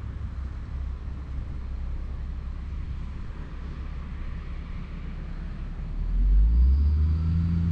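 Low rumble of a distant engine, growing louder with a steady low hum about six seconds in.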